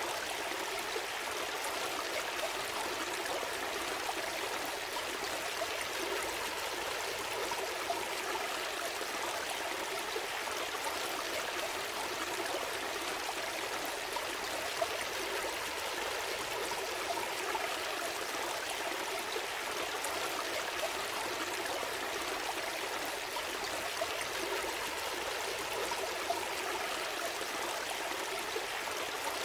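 Gentle stream flowing, a steady babble and trickle of water over stones.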